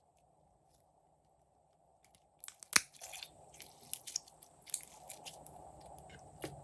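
Slime being squished and mixed by hand: near silence for about two seconds, then a quick run of wet crackling clicks and pops, the sharpest one near the start of the run.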